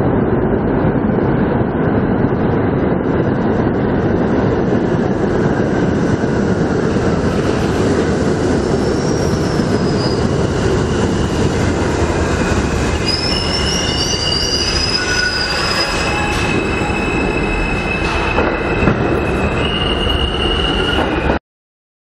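Subway train rumbling into an underground station, its steady roar joined about halfway through by high-pitched squealing from the wheels and brakes as it arrives, cutting off suddenly near the end.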